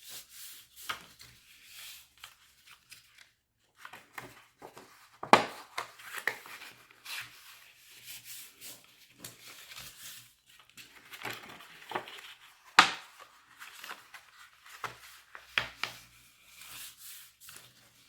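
Card stock being folded back and forth into a concertina and creased by hand: soft papery rustles, scrapes and light clicks, with two sharp knocks about seven seconds apart.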